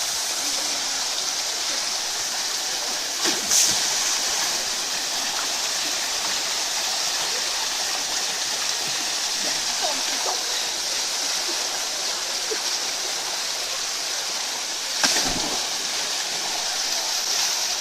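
Waterfall rushing steadily, with two short knocks, one about three and a half seconds in and another about fifteen seconds in.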